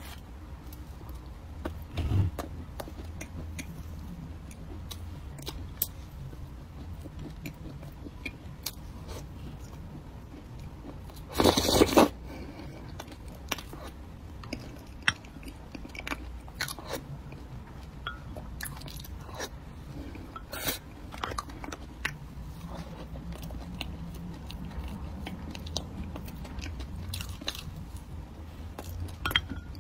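Biting and chewing a mooncake close to the microphone, with mouthfuls of thick oat bran paste taken from chopsticks: many small crunches and mouth clicks over a steady low hum. One louder burst comes about twelve seconds in.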